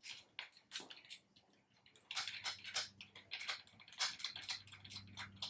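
Irregular metallic clicking and tapping from hand work on bar clamp hardware: a few clicks at first, then a dense run of them from about two seconds in.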